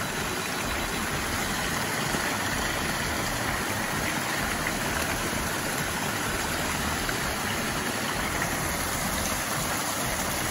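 Small mountain stream cascading over rocks, a steady rushing of water.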